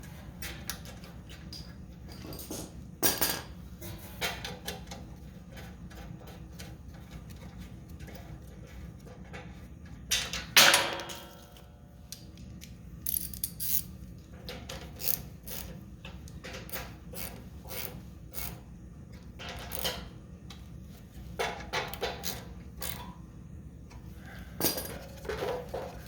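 Metal hand tools and parts clicking and clinking as a carburetor is bolted back onto a Honda generator engine. There is one loud metallic clank about ten seconds in that rings briefly, and a steady low hum underneath.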